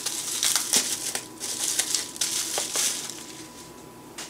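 Plastic bubble wrap crinkling and rustling as it is pulled off a small packed unit by hand, in a run of quick crackles that dies down about three seconds in.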